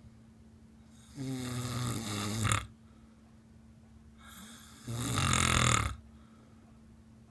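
A sleeping person snoring: two snores, the first about a second in and lasting about a second and a half, the second about five seconds in and lasting about a second, with quiet breathing gaps between. A faint steady hum runs underneath.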